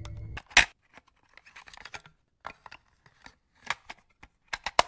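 A steady playback hum cuts off just after the start. Then comes one sharp click, followed by a scattered run of smaller clicks and rattles, the sounds of a tape deck being stopped and a tape handled.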